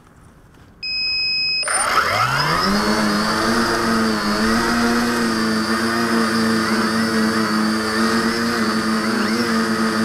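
Electric motors and propellers of a V-tail quadcopter spinning up from rest, rising in pitch over about a second, then running as a steady, slightly wavering whine as it lifts off and flies. A short electronic beep comes just before the motors start.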